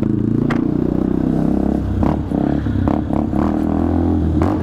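Benelli TNT 125's single-cylinder 125 cc engine running as the bike is ridden slowly, heard from an onboard camera; the engine note drops about two seconds in. A few light knocks are heard along the way.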